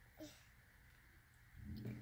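Mostly quiet. A single short hiccup about a quarter second in, then a low voice starting about a second and a half in.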